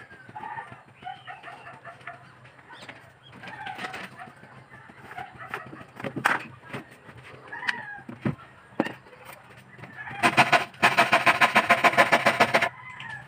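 Chickens clucking in the background with a few light knocks. Near the end comes a loud, fast, rhythmic rasping for about two seconds: a handsaw cutting plywood.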